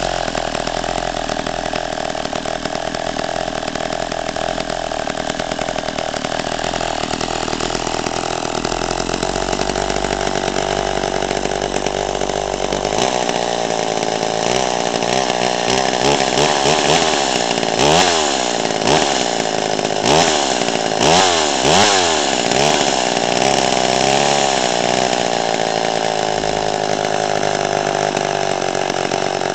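McCulloch Mac 130 two-stroke chainsaw running steadily at idle, then revved in several quick throttle blips in the second half, the engine note rising and falling with each, before settling back to a steady run.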